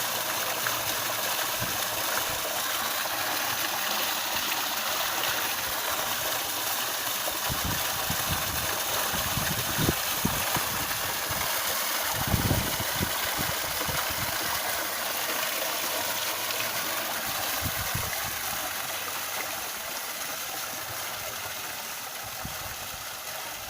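Water falling steadily down a garden waterfall, a continuous splashing rush. A few dull low thumps come about halfway through.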